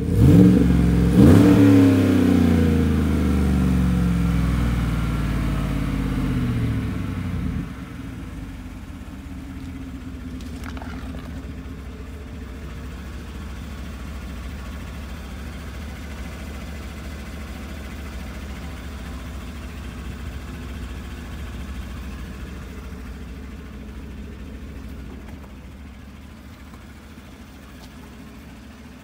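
2014 Chevy Silverado's 5.3-litre V8 with a muffler delete (cats and resonators kept) revved hard at the start, its note then winding down over several seconds. After a sudden drop in level it settles into a steady, quieter low rumble.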